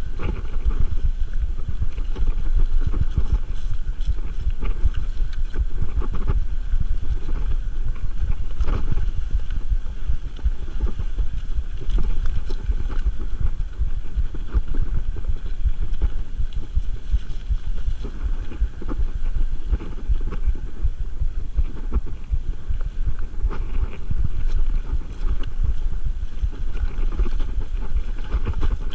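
Mountain bike rolling over a rough, rocky ledge trail: a steady low rumble of tyres on stones and loose gravel, with frequent knocks and rattles from the bike over the bumps.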